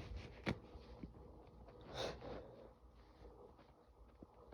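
A man's faint breathing through the nose, with one short, noisy burst of breath about two seconds in, while snuff works on him before a sneeze. A small click about half a second in.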